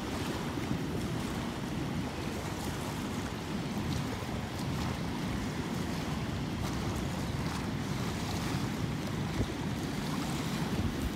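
Wind buffeting the microphone: a steady low rushing rumble with no other distinct sound.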